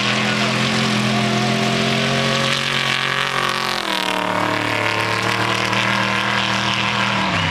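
Off-road race truck's engine running hard as it approaches and passes close by, its pitch dropping sharply about four seconds in as it goes past.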